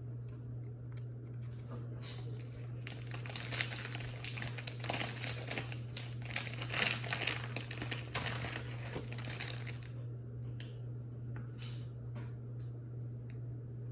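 Foil wrapper of a Pokémon booster pack crinkling as it is handled, starting about two seconds in and running for about eight seconds with scattered sharp crackles, over a steady low hum.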